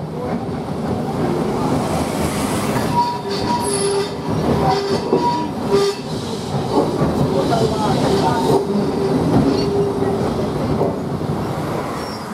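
Vintage electric tramcar from 1904 running on street track, heard from aboard the open-sided car: a steady rumble and rattle of wheels on rail, with a wheel squeal that comes and goes from about three seconds in until near the end.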